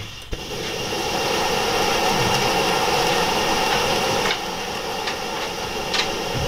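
SOTO Storm Breaker SOD-372 liquid-fuel stove burning pumped white gasoline, its burner a steady rushing hiss. The hiss swells up within the first second and eases slightly a little past the middle, as the flame flares and has not yet settled.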